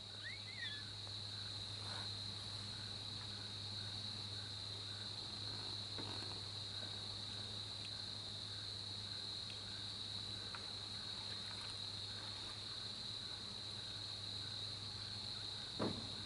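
Steady high-pitched insect chorus, crickets chirping continuously, over a faint low hum.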